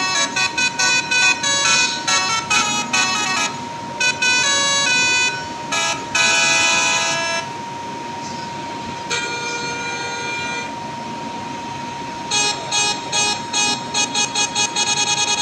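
Telolet multi-tone bus horn playing a quick tune of short staccato toots. It holds a loud chord about six seconds in and a quieter one around nine to ten seconds, then the rapid toots start again near the end.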